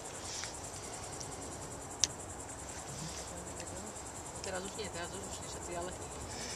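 Crickets chirping steadily in a high, fast pulsing trill. A single sharp click comes about two seconds in, and faint voices can be heard later on.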